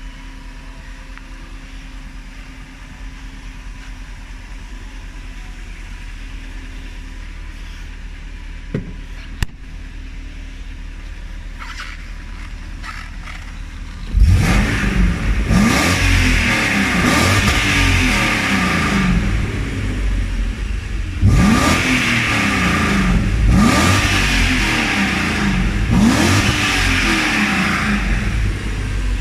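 BMW E39 540i's 4.4-litre V8 idling steadily, then revved in a string of quick throttle blips from about halfway in, each rising and falling in pitch, about seven in all.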